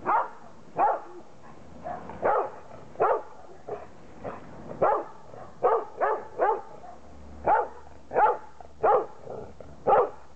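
A black Labrador barking repeatedly, a dozen or more sharp barks at about one a second, some coming in quick pairs.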